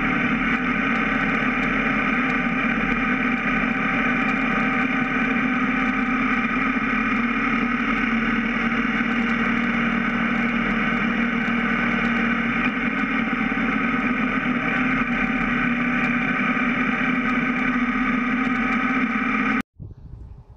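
BMW F650 GS motorcycle cruising steadily at highway speed: an even engine drone mixed with wind and road noise, heard from a camera mounted on the bike. It cuts off abruptly about a second before the end, leaving faint outdoor noise.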